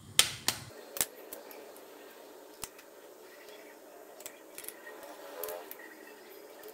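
An egg is cracked sharply on the rim of a stainless steel bowl, followed by a couple of smaller knocks. A few faint clicks follow as the shell is handled over the bowl and the white is drained off.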